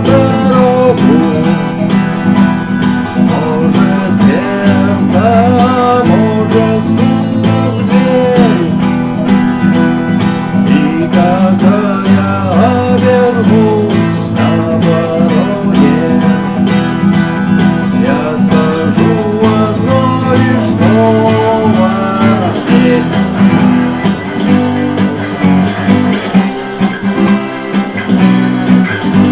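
Music: a guitar-backed rock song playing an instrumental stretch, with steady low accompaniment and a melody line bending above it.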